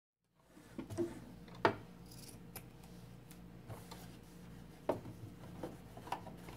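Scissors snipping through layers of patchwork fabric: a series of separate sharp snips, the loudest about one and a half seconds in.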